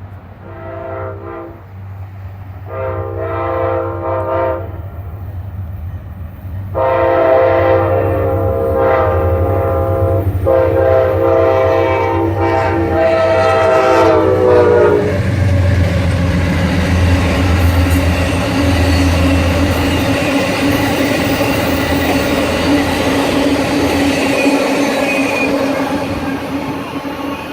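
Amtrak diesel locomotive sounding its air horn in a series of blasts, two short ones then longer ones, the last long blast dropping in pitch as the locomotive passes, over the low hum of its diesel engine. The passenger cars then roll by with a steady rumble and clickety-clack of wheels on rail joints.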